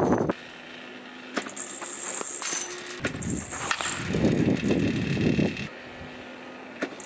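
Batting practice with a pitching machine: a sharp knock about a second and a half in and another about three seconds in, from the machine firing a baseball and the ball or bat striking. Gusts of wind on the microphone follow.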